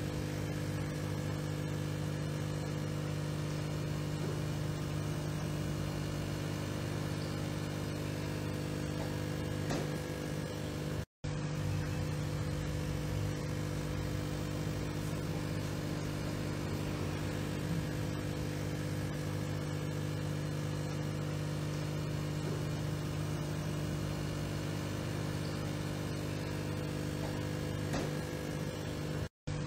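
Steady low mechanical hum with several fixed pitches that never rise or fall, broken by two brief dropouts, about eleven seconds in and near the end.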